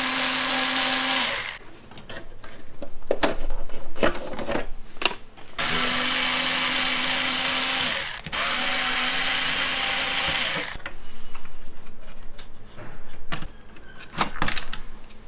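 Cordless electric screwdriver running in three steady bursts of about two seconds each, backing out screws from a desktop PC's metal chassis. Between the bursts there are clicks and rattles of screws and metal parts being handled.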